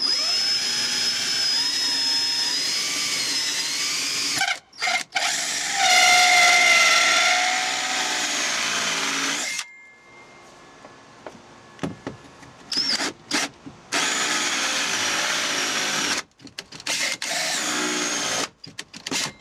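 Cordless DeWalt drill driving a 2.5-inch hole saw through the side panel of a fiberglass boat, its whine sagging and recovering as the saw bites. It runs in stretches: a brief stop about four and a half seconds in, a few seconds' pause midway, then short stop-start bursts near the end as the cut breaks through.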